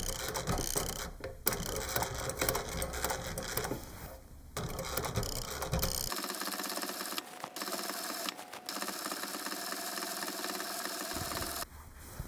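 Sewing machine stitching leather around cord to make upholstery piping, running in spurts with short stops in the first half, then a longer steady run.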